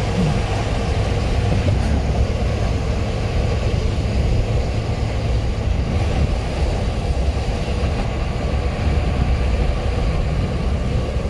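Steady road noise inside a moving car's cabin: tyres and engine as a low, even rumble with a light hiss above it.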